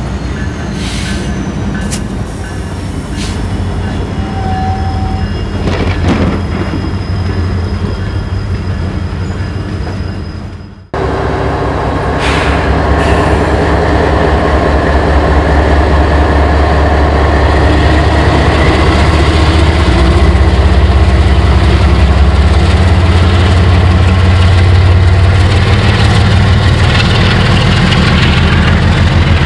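Diesel locomotive engine rumble, with a hard cut about eleven seconds in to Canadian Pacific GE ES44AC locomotives throttling up, their GEVO V12 diesels getting louder over several seconds and then working hard at high throttle.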